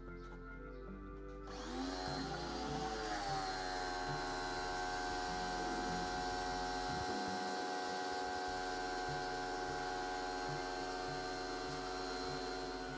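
Electric high-pressure washer motor starting about a second and a half in, its whine rising in pitch as it spins up and then running steadily.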